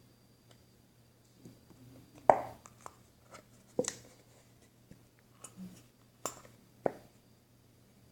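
Slime being worked by hand: a few sharp pops and clicks, the loudest about two seconds in, then others near four, six and seven seconds, with small ticks between.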